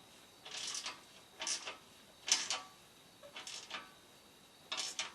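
Ratchet wrench tightening a skid plate bolt: five short ratcheting bursts about a second apart, the pawl clicking on each back-swing.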